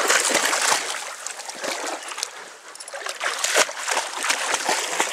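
Creek water splashing and sloshing irregularly as a dog wades through the shallows, over the steady trickle of the stream.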